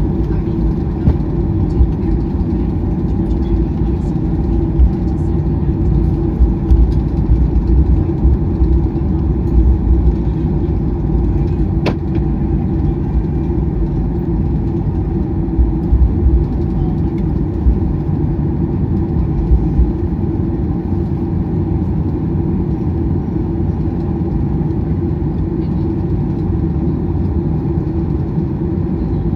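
Cabin noise of a Boeing 737-800 taxiing: the steady hum of its CFM56 engines at idle over a low rumble from the wheels rolling on the taxiway, with occasional bumps. One sharp click about twelve seconds in.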